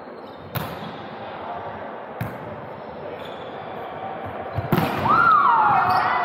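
A volleyball is struck by players' hands and arms, sharp slaps about half a second in, at two seconds and a quick cluster near five seconds, echoing in a large gym hall. Near the end a player gives a loud call that rises and then falls in pitch.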